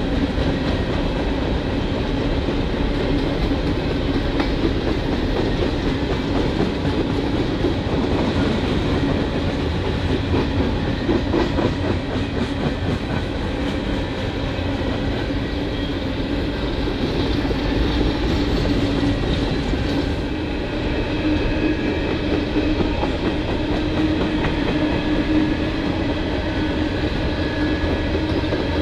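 Norfolk Southern freight train's cars rolling past, a steady continuous rumble of wheels on rail.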